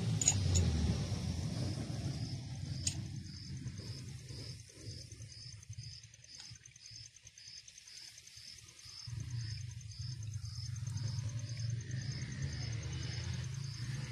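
An insect calling in an even rhythm of about two high chirps a second, with a thin steady high tone, over a low rumble that fades away in the middle and comes back near the end.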